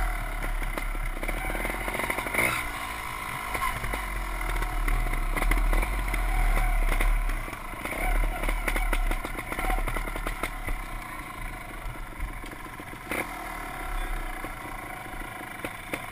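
Small off-road motorcycle engine running at low speed, its pitch rising and falling as the throttle is opened and closed. There are frequent short knocks from the bike over gravel, and a low rumble from wind on the microphone.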